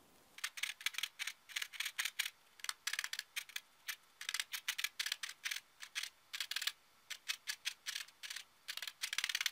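Multi-needle felting tool stabbing into wool, a crisp jab repeated in quick runs of several strokes with short pauses between.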